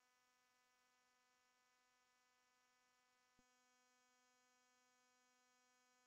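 Near silence with a very faint steady electrical hum and a tiny click a little over three seconds in.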